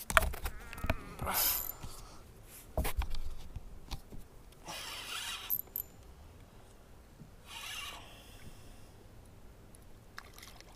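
Fishing tackle at work while a hooked bass is played in: a spinning reel and line give a cluster of sharp clicks near the start, then a few short, separate zipping hisses.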